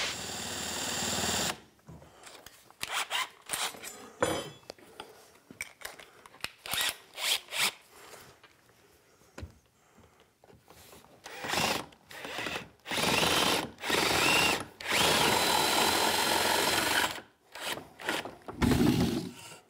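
A swoosh transition effect, then light clicks and knocks of setting up. A cordless drill with a 1/2-inch spade bit bores into a hickory stool leg in several short runs and then one longer run, and a low thud comes near the end.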